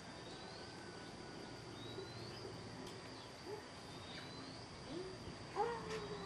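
Faint outdoor ambience of birds and insects. A bird gives short rising chirps every couple of seconds over a steady high-pitched insect drone. Several faint lower gliding calls come in the second half, the loudest about five and a half seconds in.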